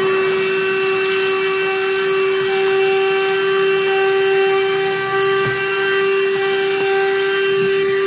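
Niecarva 12-volt, 150 W handheld car vacuum running: a steady motor whine over rushing airflow as its brush nozzle sucks dirt and gravel off car floor carpet. The speaker calls it very quiet.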